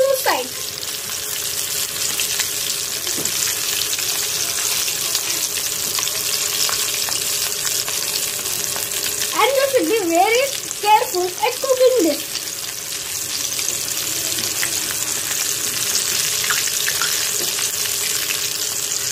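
Batter-coated chicken legs deep-frying in hot oil in an iron kadai: a steady sizzle, stirred and turned with a metal slotted spatula.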